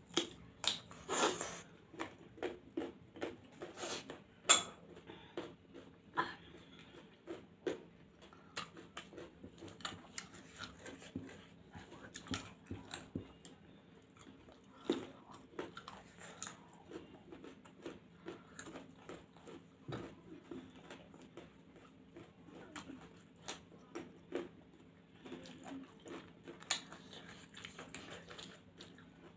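Close-up sounds of a person eating puri by hand: chewing and biting, heard as irregular short clicks, several a second, loudest in the first five seconds. A faint steady hum runs underneath.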